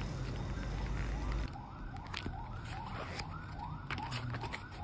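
Pages of a thick paperback atlas being flipped quickly one after another: a run of quick paper swishes, about three a second, from about a second and a half in, with a few sharp snaps of paper.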